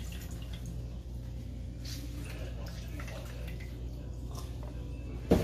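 Wire whisk stirring orange-juice sauce in a stainless steel bowl, the liquid sloshing softly over a low steady hum, with one sharp clink of the whisk against the bowl near the end.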